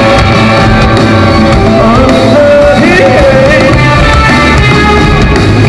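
Rock band playing live and loud, with electric guitars over drums and bass.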